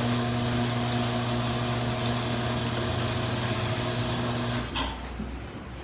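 A steady electric motor hum with a rushing, air-like noise, which cuts off abruptly near the end.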